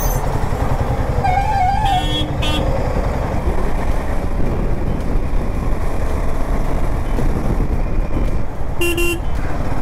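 Royal Enfield Himalayan 450 motorcycle picking up speed in city traffic: steady engine and wind rush. Other vehicles' horns toot briefly around two seconds in and once more near the end.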